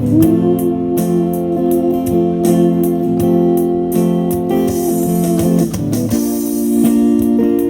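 Live band playing a pop-rock song: strummed guitar over a sustained chord, with a wavering held note on top, changing to a new chord about six seconds in.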